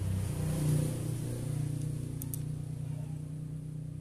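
A motor vehicle engine running with a steady low hum that swells about a second in and then slowly fades. A couple of light metal clicks come a little after two seconds, as clutch parts are handled.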